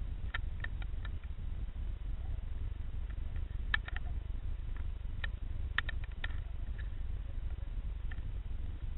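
Sound picked up underwater: a steady low rumble of the water with scattered sharp clicks and ticks. The clicks come in small clusters about half a second in, near the middle and a little after.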